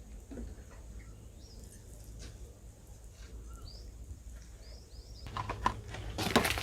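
Outdoor ambience with a steady low rumble and short bird chirps repeating every second or so. About five seconds in, a run of louder knocks and clatter begins.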